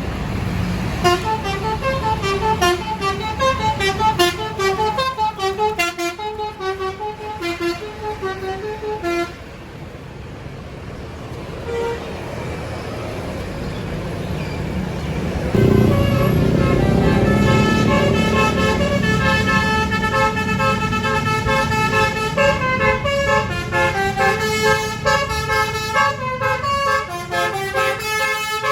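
Bus telolet horn of the Basuri type, a multi-tone horn playing a quick stepped melody for about nine seconds. About halfway a bus engine rumbles loudly close by, and then the horn plays a longer melody, several notes at once, to the end.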